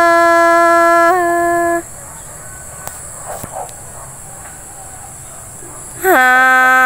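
Musical accompaniment to a Tai khắp song: an instrument holds one long, very steady note with a small flick in pitch about a second in, then stops short at about two seconds. After a quieter stretch with a few faint clicks, another long held note, a little lower, comes in about six seconds in.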